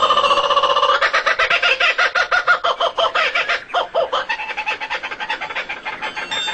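Rapid, repeated fowl-like clucking calls, thinning out in the second half.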